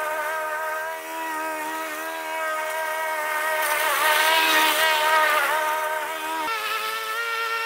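Walk-behind petrol lawn mower running while cutting grass, a steady engine note that sags briefly a couple of times around the middle.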